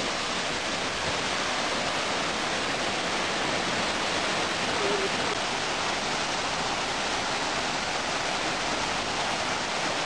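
Waterfall pouring down a rock face into a shallow pool: a steady, even rush of falling water.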